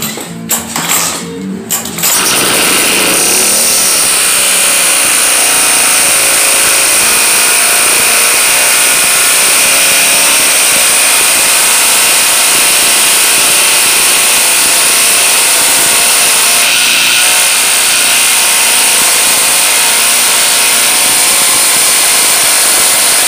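Lawnmower engine, rigged as a boat outboard motor, catches about two seconds in after some clattering and then runs loudly and steadily.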